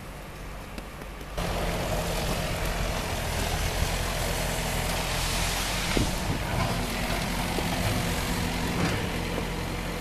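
Tractor engine running steadily, with a low engine drone and a hiss of noise over it; it jumps suddenly louder about a second and a half in and then holds.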